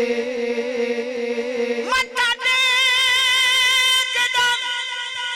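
A man singing a devotional naat into a microphone, holding one long, slightly wavering note that breaks off about two seconds in. A steady held tone then carries on to the end.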